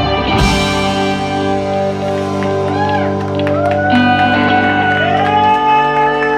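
A rock band's final chord, hit with a loud crash about half a second in and then left ringing: electric guitars sustain, some notes gliding and wavering in pitch. The bass drops out about five seconds in.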